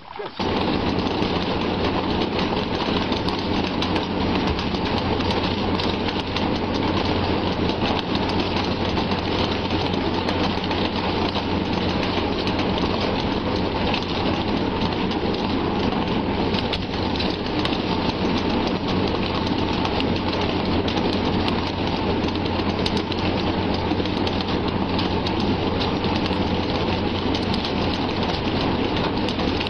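Dense, continuous splashing and churning of water from a net full of thrashing fish, over the steady hum of a boat engine running.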